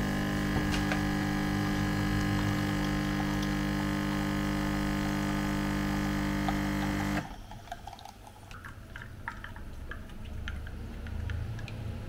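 De'Longhi espresso machine's pump running with a steady, even hum while espresso pours into a glass cup, cut off suddenly about seven seconds in as the machine's knob is turned. Then soft clicks and handling noises.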